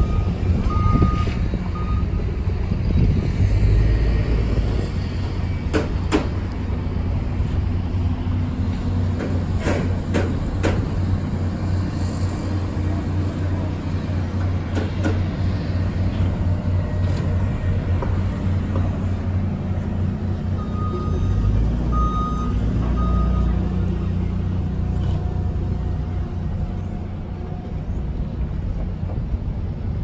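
Construction-site machinery: a steady low engine rumble, with a reversing beeper sounding a few times near the start and again about two-thirds of the way through. A few sharp knocks stand out over the rumble.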